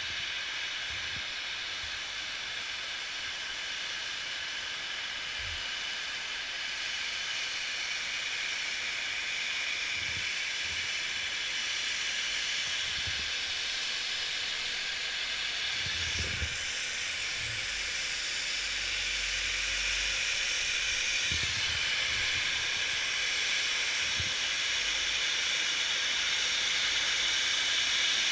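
Snowmaking guns hissing steadily as they spray snow, growing slowly louder, with a few soft low thumps along the way.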